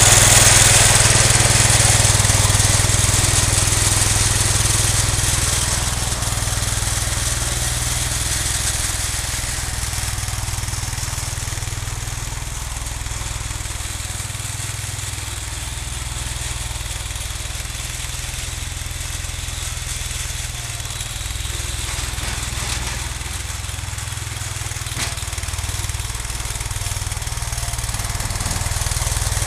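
Cub Cadet 149 garden tractor's single-cylinder Kohler engine running steadily while plowing snow, fading as the tractor moves away and growing louder again near the end as it comes back.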